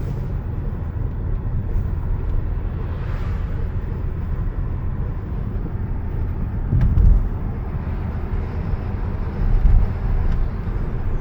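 Nissan 370Z driving noise: a steady low rumble from road and drivetrain, with two heavier low thumps about seven and ten seconds in. The car has a rattle that stays with the clutch pressed and does not follow engine speed, heard mostly while the drivetrain is cold.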